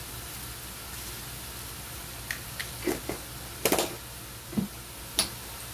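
Low steady kitchen hum with a handful of light clicks and knocks from handling cooking utensils and containers, spread over the second half, the loudest a little before four seconds in.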